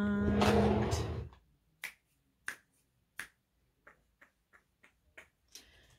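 A held note ends about a second in. It is followed by a run of light, sharp finger snaps, about a dozen, irregularly spaced and coming faster toward the end.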